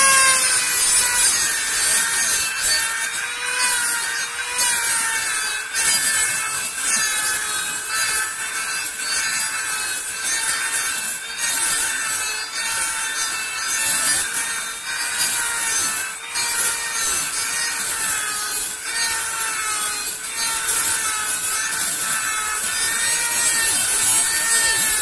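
Dremel MultiPro single-speed rotary tool running with a steady whine that wavers slightly in pitch. Its bit grinds around the inside of a PVC pipe connector with a rasping scrape, smoothing down an inner lip.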